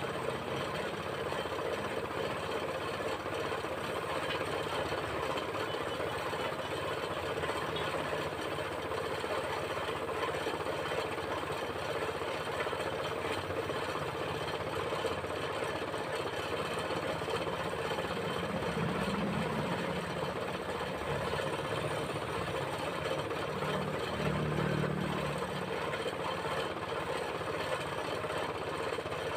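Air compressor running steadily with the hiss of a spray gun laying clear coat on a car's front bumper. A low rumble swells briefly twice, about two-thirds of the way through and again near the end.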